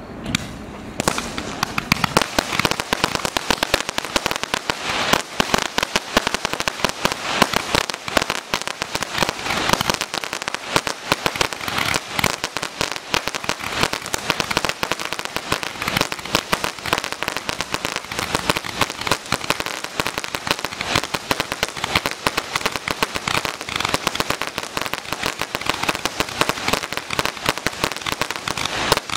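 A 660-shot Roman candle firing rapid, continuous pops as it launches a stream of silver chrysanthemum shots, starting about a second in.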